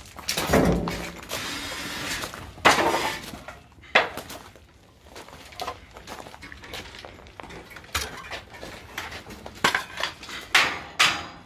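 Irregular clattering and a few heavy knocks on a building site. Near the end comes a run of sharp hammer knocks, about two a second.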